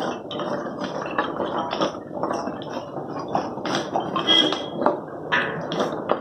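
Dry wooden sticks and offcuts clattering and knocking together as handfuls are gathered and pushed into a wood-fired stove's firebox, a string of irregular clacks.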